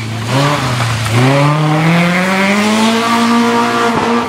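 Rally car engine accelerating hard out of a bend: after a short blip and dip in the first second, the engine note rises steadily for about two seconds and then holds high.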